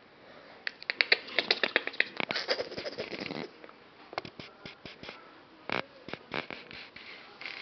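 Puppy sniffing and snuffling at a rug with its nose down: a quick run of short sniffs in the first few seconds, then scattered single sniffs.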